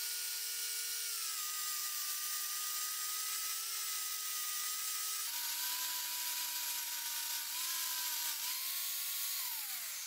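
Electric angle grinder spinning a polishing pad against a moka pot's metal body, buffing it: a steady high motor whine. The pitch sags as the pad is pressed on, drops lower about halfway, and starts to fall near the end as the grinder is lifted off.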